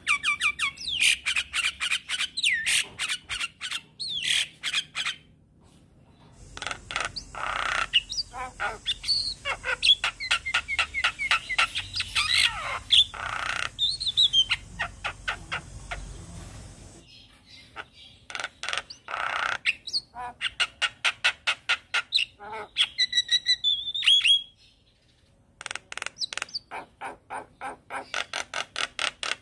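Javan myna (jalak kebo) singing vigorously in long runs of rapid clicking notes mixed with gliding whistles, broken by two short pauses.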